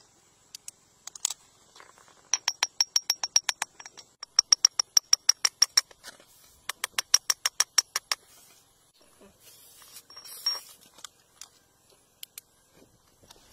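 Rapid light metal taps of a hammer and chisel chipping rock, about six strikes a second, each with a short bright ring, in three runs. Softer scraping near the end.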